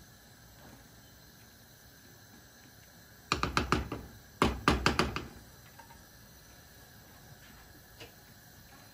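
A spatula knocking against the rim of a metal cooking pot in two quick runs of sharp taps, about three seconds in and again a second later.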